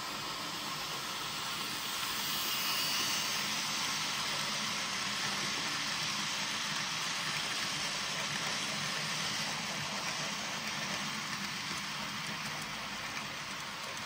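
Model railway steam locomotive and coaches running along the track: a steady rolling, hissing run that grows louder about two seconds in as the train comes close and slowly fades toward the end.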